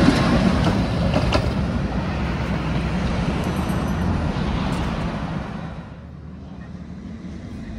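Tatra tram running past on the rails, a steady rumble with a couple of sharp clicks early, fading away about six seconds in.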